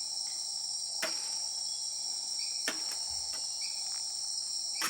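Rainforest insect chorus: a steady high-pitched buzzing drone. Three sharp knocks about a second and a half apart.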